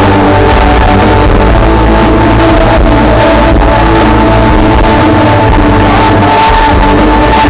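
Live rock band playing loud on stage, recorded from within the audience, with a held high note over a heavy bass line.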